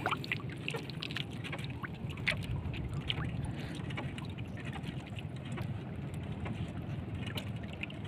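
Low, uneven wash of sea water and wind around a small outrigger fishing boat, with faint scattered clicks throughout.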